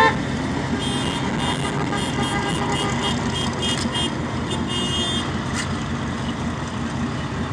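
Light-decorated trucks and a pickup driving past at parade pace, engines running steadily over road noise. Between about one and five seconds in, a quick string of short high beeps sounds over the engines.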